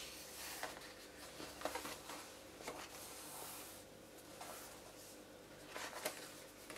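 Faint paper rustling and a few light taps as hands turn and smooth the pages of a paperback colouring book.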